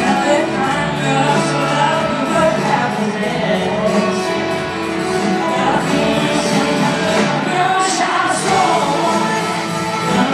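Live band playing a country-pop song with a male lead vocal, heard from far back in an arena crowd through a phone's microphone.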